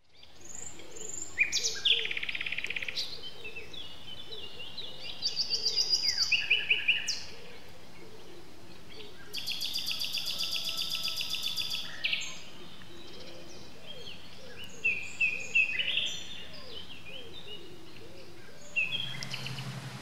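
Several songbirds singing in turn: short trilled phrases and chirps, with a fast rattling trill lasting a couple of seconds midway. Near the end a low steady hum comes in underneath.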